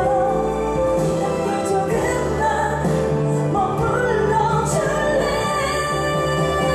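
A woman singing a slow ballad into a handheld microphone, over sustained instrumental accompaniment.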